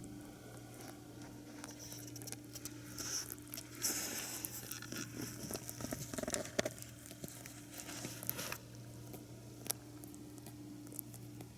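Faint small clicks and rustles from a sleeping pet rabbit moving in its sleep, thickening into a denser patch of rustling and clicking from about four to eight and a half seconds in, over a steady low hum.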